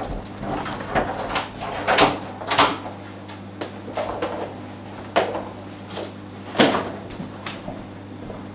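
Irregular knocks and clunks from a hallway's front door being handled and footsteps on the floor, over a steady low hum.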